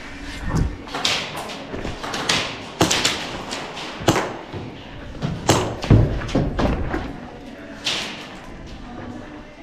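A string of irregular knocks and thumps, about a dozen in several seconds, some sharp and some with a low thud.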